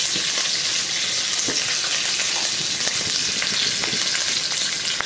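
Hot oil sizzling steadily in a kadai, with a tempering of cumin and mustard seeds crackling and popping in it.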